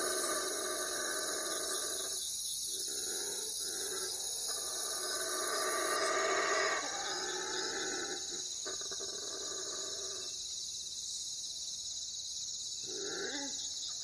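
Night-time animal calls: several drawn-out, overlapping calls that break off and start again every second or two, with a few falling calls near the end, over a steady high-pitched drone.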